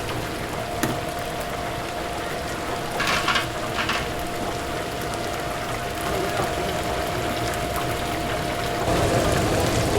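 Chicken deep-frying in a vat of hot oil, a steady bubbling hiss with a faint steady whine, and two short clatters about three and four seconds in.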